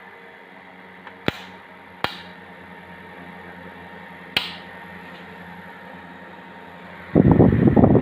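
Steady low electrical hum with three sharp clicks, then about seven seconds in a loud, rough, fluttering rumble starts abruptly.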